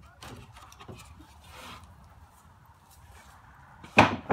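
Wooden boards being slid and shifted on a lumber rack, rubbing and clicking against each other, with two loud wooden knocks in quick succession near the end as boards are set down.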